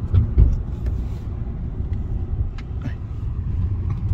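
Car cabin road noise while driving: a steady low rumble of engine and tyres, with a couple of low thumps in the first half second.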